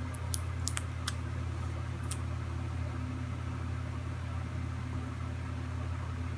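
Steady low background hum, with a few light clicks in the first two seconds.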